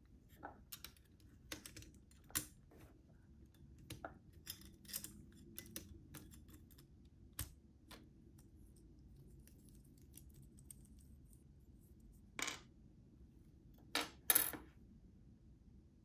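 Plastic keycaps clicking as they are pulled off a mechanical keyboard's Cherry MX-style switches with a wire keycap puller and handled: a run of light clicks over the first several seconds, then a few louder clacks near the end.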